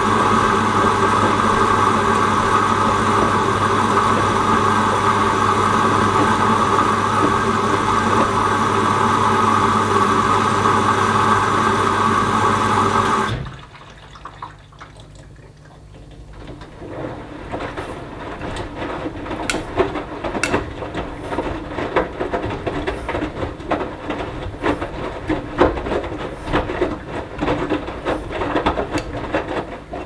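Hoover Dynamic Next front-loading washing machine in its wash phase. A loud, steady machine hum cuts off abruptly about 13 seconds in. Then water sloshes and the load tumbles in the drum, with many small knocks and splashes.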